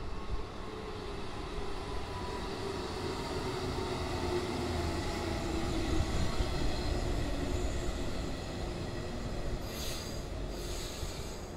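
JR West 115 series electric train running past at close range: a steady rumble of wheels on rail with faint tones running through it, loudest midway, and two brief hisses near the end.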